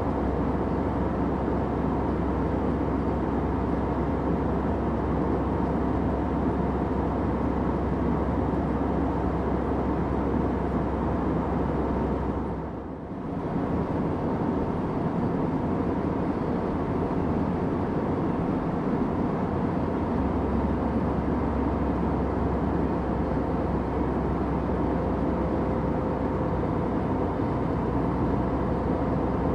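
Steady airplane cabin noise: an even rushing rumble with a faint steady hum. It dips briefly for about a second near the middle.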